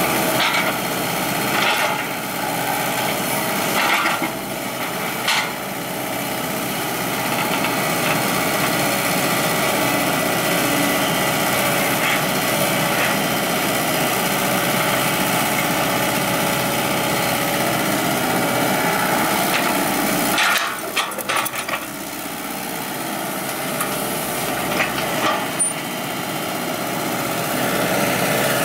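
Komatsu hydraulic excavator running steadily while it levels soil, with a few short knocks and clatters, a cluster of them about three quarters of the way through.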